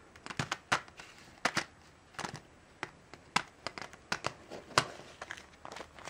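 Clear plastic blister pack on a cardboard backing card crinkling and clicking as fingers press and handle it: a dozen or so sharp, irregular crackles.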